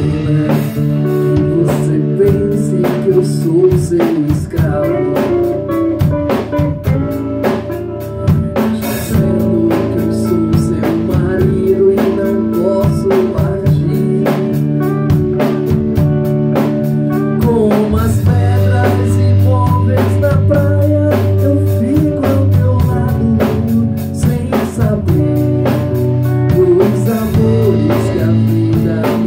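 Band music with a steady drum-kit beat and guitar.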